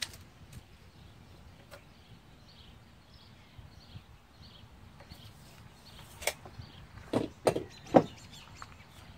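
Tape measure and hand tools handled on a wooden board: a sharp click at the start, then a few short knocks about two-thirds of the way in, the last and loudest near the end.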